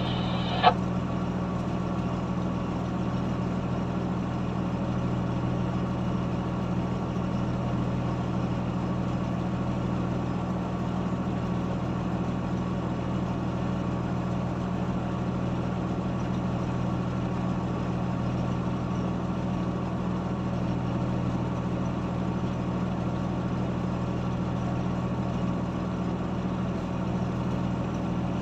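Heavy diesel engine of road-repair machinery running steadily at a constant pace, with a brief pitched blip just under a second in.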